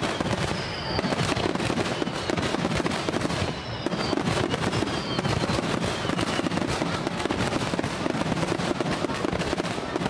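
A rapid barrage of aerial firework shells bursting one after another with no break, thick with bangs and crackle. A few faint whistles falling in pitch sound through it.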